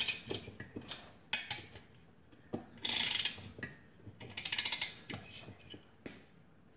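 Torque wrench ratcheting on the cylinder head nuts as they are tightened in stages up to 18 ft-lb: quick runs of clicks, one ending as it begins and others about three and four and a half seconds in, with a few single clicks and knocks between.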